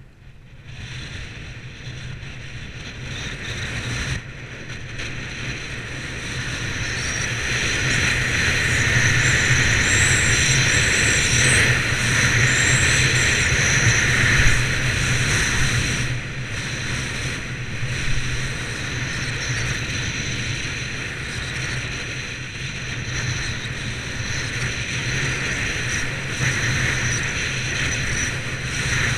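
Wind rushing over the microphone with the hiss of skis sliding on packed snow on a downhill ski run. The sound grows louder over the first several seconds, then stays steady.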